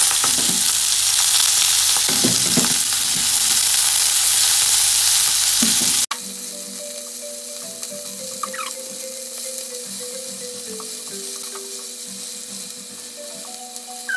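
Beef and bone-in beef rib pieces sizzling loudly in a steel frying pan, with a few clicks of chopsticks against the pan as pieces are turned. About six seconds in the sound cuts abruptly to a quieter sizzle under a simple background-music melody.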